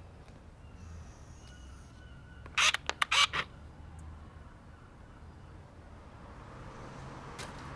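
Quiet outdoor street background with faint high chirps, broken a little over two and a half seconds in by a tight cluster of four or five loud, harsh, sharp sounds lasting under a second.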